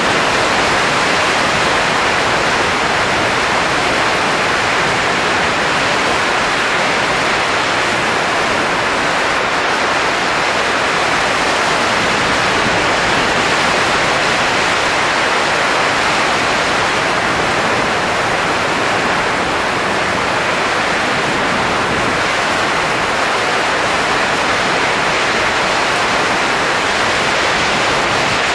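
Steady rush of blowing air, an even hiss that neither rises nor falls and never breaks.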